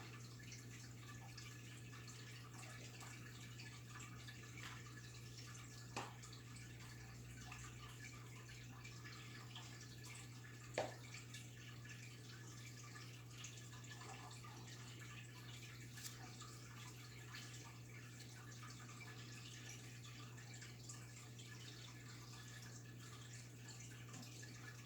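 Faint aquarium water sounds: a light trickle and drip over a steady low hum, as from a tank's filter or pump. There are two small ticks, one about six seconds in and another near eleven seconds.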